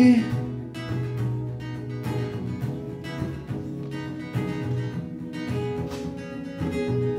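Solo acoustic guitar strummed softly and evenly, with chords ringing on: a played fade-out ending the song.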